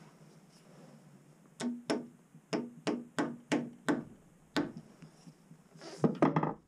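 A series of about eight sharp knocks on the 3/4-inch birch plywood dresser carcass, a third to half a second apart, each ringing briefly through the panel as it is fastened at its top edge. A quick cluster of louder knocks and rattles follows near the end.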